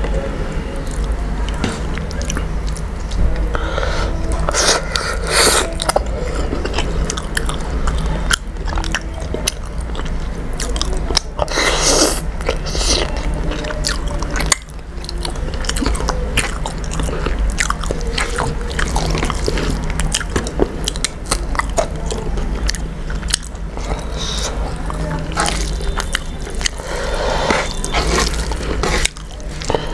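Close-miked eating sounds: chewing mouthfuls of rice and fish curry, with many small wet smacks and clicks, and fingers squishing the rice and curry together on the plate. A low steady hum lies under it.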